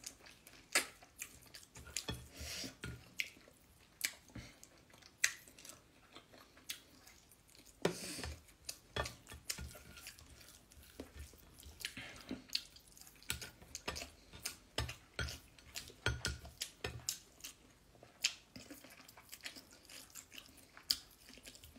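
A person chewing chicken rica-rica eaten by hand, with many short, irregular wet mouth clicks and smacks.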